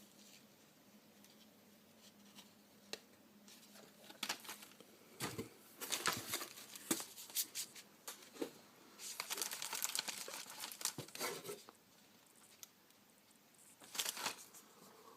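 Packaging being crinkled and torn open by hand, in three spells of crackling, rustling noise with quiet gaps between them.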